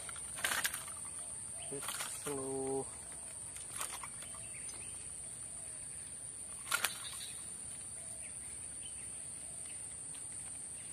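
Steady high-pitched insect drone, broken by a few sharp clicks and knocks from handling a freshly caught snakehead on the line; the loudest click comes near the end.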